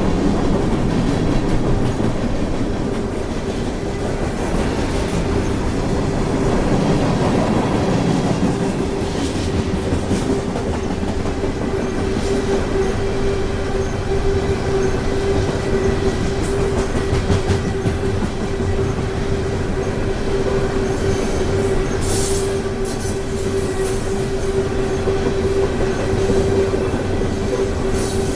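Freight train rolling past, wheels clattering over the rail joints, with a steady tone held throughout.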